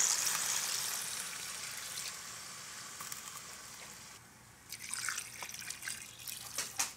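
Water poured from a cup onto seared oxtails in a pot, splashing. The first pour trails off over the first few seconds, and after a short break a second pour splashes for the last couple of seconds.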